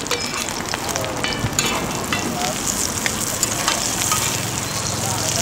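Thai-style omelets frying in a large pan of hot oil, sizzling steadily, with a few clinks of the metal ladle and spatula against the pan as oil is spooned over them and they are turned.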